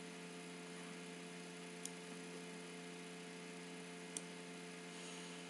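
Faint steady electrical hum with several tones, with two soft computer-mouse clicks, about two seconds in and again about four seconds in.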